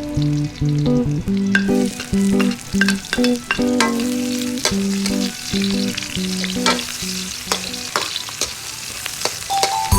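Food sizzling in a hot pan while being stirred, with repeated clicks of the utensil against the pan, over a background melody. The sizzling grows denser about one and a half seconds in.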